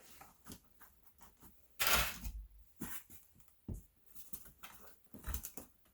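Scattered clicks and light knocks of tools and rivet parts being handled while setting a rivet in a leather tool belt, with one louder rustling scrape about two seconds in.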